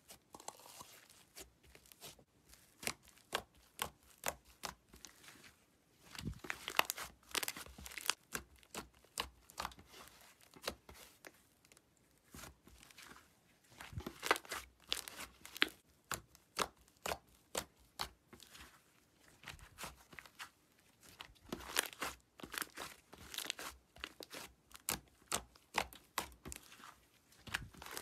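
Fingers squeezing, poking and stretching thick, fluffy slime, which gives off clusters of small crackles and tearing sounds, with a few short pauses between handlings.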